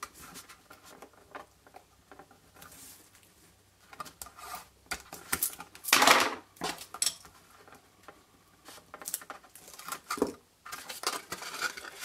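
Cardstock and double-sided adhesive tape being handled on a craft mat: scattered light taps, rustles and rubs as the tape is laid along the card's edge and pressed down, with one louder rustle about halfway through.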